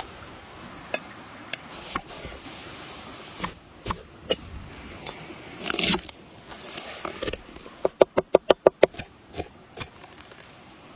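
Wood fire crackling with scattered sharp cracks. A crunch as a steel cleaver cuts into a head of garlic on a wooden board, then about a second in which the cleaver chops rapidly on the board, about nine sharp strikes, followed by diced vegetable scraped along the blade.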